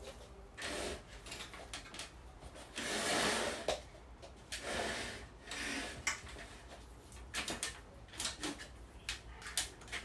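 Cloth wiping a ceiling fan blade in several short rough rubbing strokes, followed in the second half by a run of light clicks and knocks.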